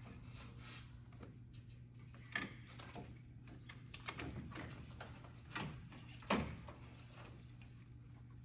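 Light knocks, clicks and clatter of parts being handled and fitted into a truck cab, with a sharper knock about six seconds in. A steady low hum runs underneath.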